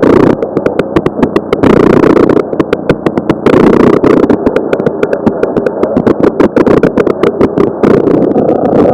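Off-road race truck running over rough ground, heard from inside the truck: the engine runs under load amid a dense, irregular clatter of knocks and rattles. Two short bursts of hiss come about two and four seconds in.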